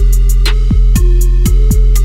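Electronic background music with a steady beat: deep kick drums that drop in pitch, crisp hi-hats and a sustained bass.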